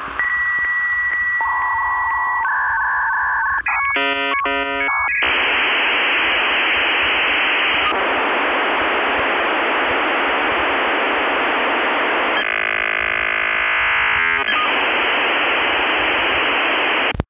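Dial-up modem connection sound. It begins with steady and warbling tones, then a short burst of stacked dialing-like tones about four seconds in, then a long hiss of line-data noise with a buzzier stretch near the end. It cuts off suddenly.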